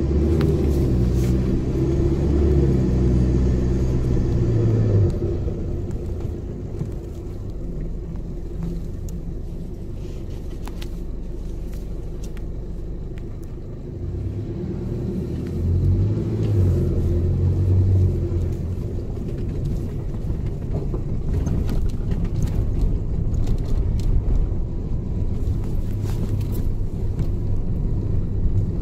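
A four-wheel drive's engine and tyres heard from inside the cab on a sandy track: a steady low drone, louder for the first few seconds, easing off, then building again about halfway through, with occasional small knocks and rattles over the bumps.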